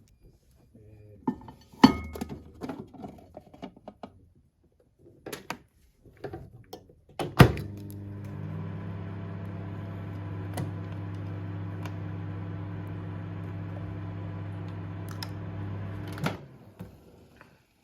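Clatter and knocks of a rice container being set in a microwave oven and the door shut with a loud thunk. The microwave then starts cooking the rice with a steady electrical hum and fan noise for about nine seconds, and stops suddenly with a click.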